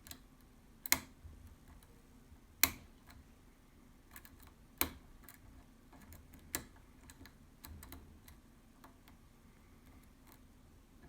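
Pin-tumbler lock being single-pin picked with a hook pick: faint, irregular metallic ticks of the pick working the pins, with four sharper clicks about two seconds apart.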